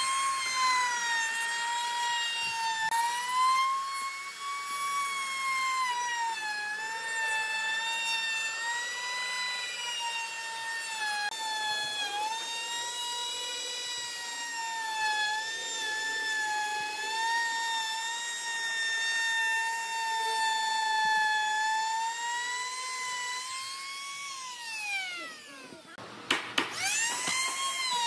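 Compact trim router running at a high-pitched whine, its pitch dipping and recovering as the bit cuts along the edge of the wood. About 24 seconds in it winds down with a falling whine, then spins back up with a rising one a couple of seconds later.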